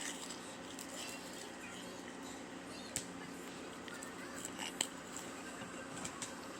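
Quiet room noise with a steady low hum and a few faint, sharp clicks, the loudest about three seconds in and just before five seconds in.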